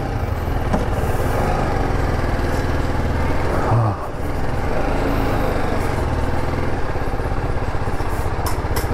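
TVS Apache RR310's single-cylinder engine running as the motorcycle moves off at low speed, easing off briefly about four seconds in before pulling on steadily.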